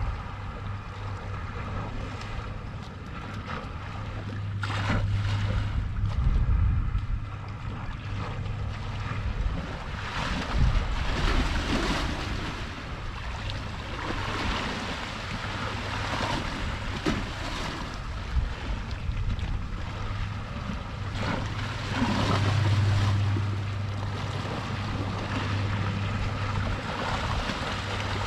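Sea waves washing against the shore in repeated swells, with wind buffeting the microphone. A steady low hum runs underneath and swells louder twice.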